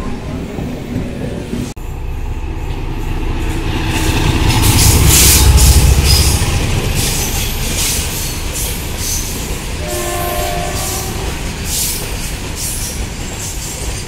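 Long goods train of covered wagons rolling past on the rails, its wheels clattering over the rail joints; the noise swells to a peak about five seconds in. The sound cuts out for an instant about two seconds in, and a brief horn sounds around ten seconds in.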